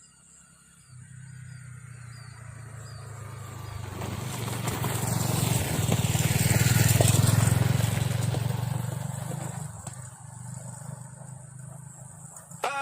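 A motor vehicle's engine running with a steady low hum that swells to its loudest about seven seconds in, then fades away.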